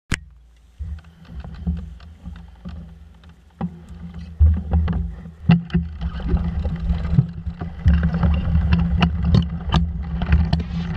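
Wind buffeting a camera microphone, an uneven low rumble that gets louder about four seconds in, with scattered clicks and knocks from mountain bikes being handled and ridden on a dirt track.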